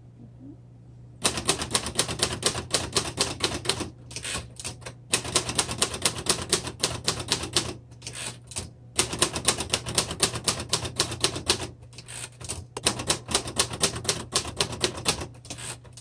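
1962 Royal Heritage III manual typewriter being typed on: rapid clacking keystrokes in four runs, with short pauses between them.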